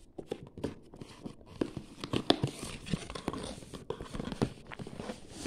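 Paper wrapping being handled and nosed through, crinkling and rustling in short, irregular crackles.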